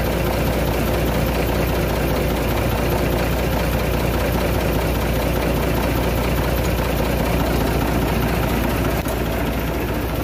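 Isuzu 6BG1 inline-six diesel engine idling steadily, running after a semi-overhaul.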